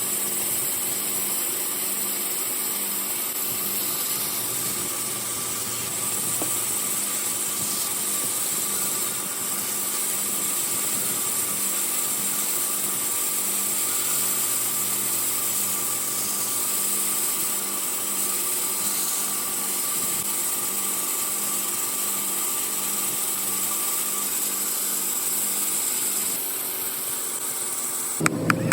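A power tool running steadily without a break, with a strong high-pitched hiss over faint steady hum tones.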